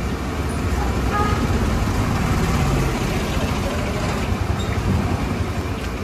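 Steady road traffic noise, with a low rumble of passing vehicles.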